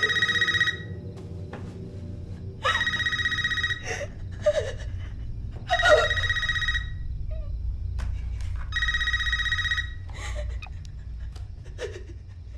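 Telephone ringing four times, each a trilling ring about a second long, roughly three seconds apart, over a low steady drone.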